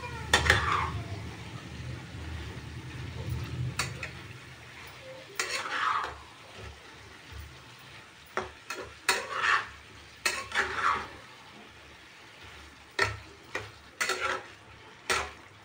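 Spatula stirring cauliflower and potato pieces coated in masala in a frying pan, with a scrape against the pan every second or two over a faint sizzle of frying.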